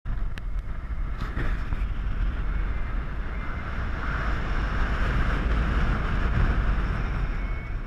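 Car driving along a winding road, heard through a camera mounted on the outside of the car: steady low wind rumble on the microphone over road and engine noise.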